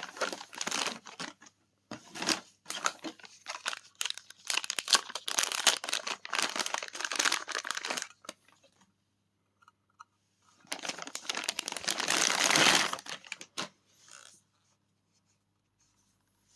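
Packaging being crinkled and torn open while unboxing a hair dryer: a long stretch of rustling and tearing, a pause, then another burst of crinkling for about three seconds, followed by a few small handling noises.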